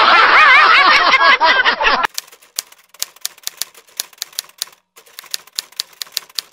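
A man laughing loudly for about two seconds, then a typewriter sound effect: quick, irregular key clicks, about five a second, with a brief pause near the middle.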